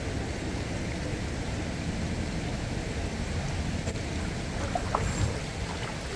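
Steady rush of river water and wind. A few faint short clicks come about four to five seconds in, as a fish is hooked.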